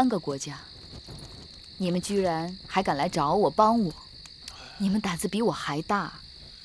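Crickets chirping in a steady, unbroken high-pitched trill beneath a woman's speech.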